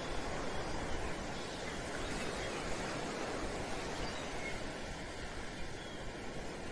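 Steady, even rushing of ocean surf, with no distinct wave breaks.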